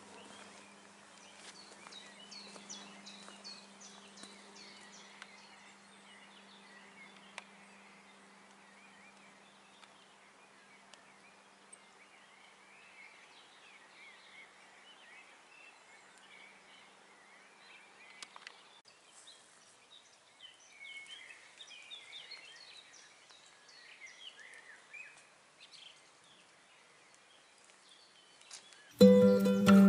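Small birds chirping and singing in short phrases over quiet outdoor ambience, with a faint low steady hum for about the first twelve seconds. Loud background music with plucked strings starts suddenly near the end.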